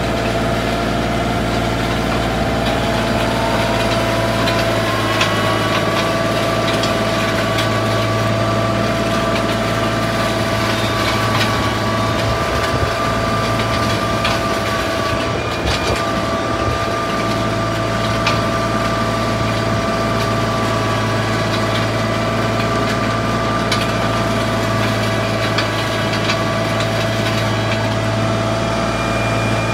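Compact John Deere tractor running steadily under load while pulling a three-point groomer through arena dirt. Its engine hum has a whine on top that rises in pitch over the first few seconds and then holds steady.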